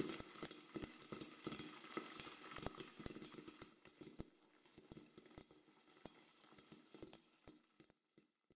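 Popcorn kernels popping in a lidded pan of hot oil, faint irregular pops over a light sizzle. The pops thin out as the pan comes off the heat and die away near the end.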